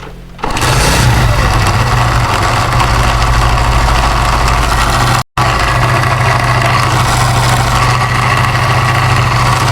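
Motorcycle engine running steadily with a loud, bad noise, with a brief break a little past halfway. The noise comes from a loose stator coil inside the magneto rubbing against the flywheel magnet.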